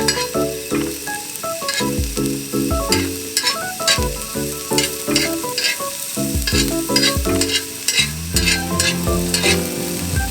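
Background music with a melody, bass and steady beat, over a sizzling hiss like food frying in a pan.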